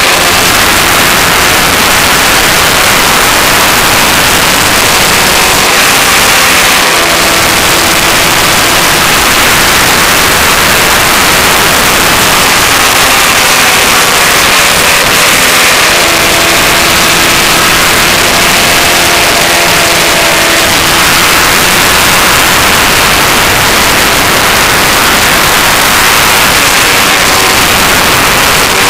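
Loud, steady wind noise buffeting a motorcycle-mounted camera's microphone at road speed, with the Honda Fireblade's engine coming through faintly beneath it at times.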